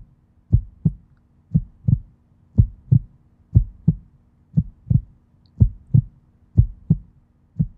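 Heartbeat sound: paired lub-dub thumps, about one beat a second, over a faint steady hum.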